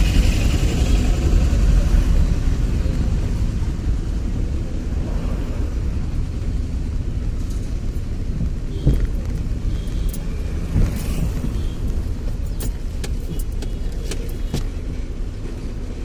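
Road and engine noise inside a moving car's cabin: a steady low rumble, with a few short, light clicks in the second half.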